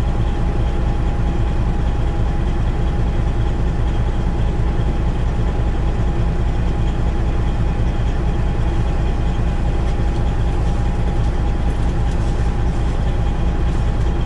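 Peterbilt semi truck's diesel engine idling steadily, heard from inside the cab, with a thin steady whine above the low hum.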